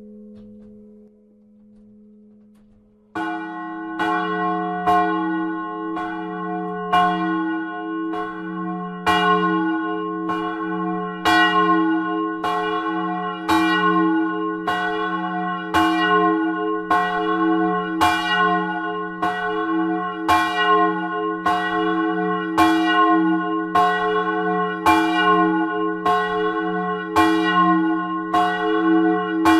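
Large swinging bronze church bell, the 1100 kg storm bell (Sturmglocke) tuned to F-sharp, starts ringing about three seconds in and strikes about once a second, each stroke ringing on into the next. Before it starts, only the fading hum of another bell.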